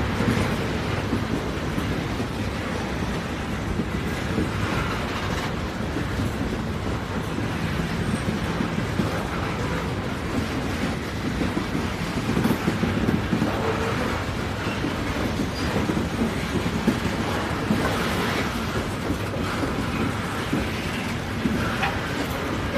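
Moving train on the rails: a steady, even rumble of wheels and cars on the track.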